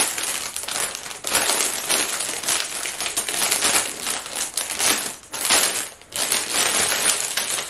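Clear plastic garment bag crinkling and rustling as it is handled and opened, on and off with short breaks about a second in and around five and six seconds in.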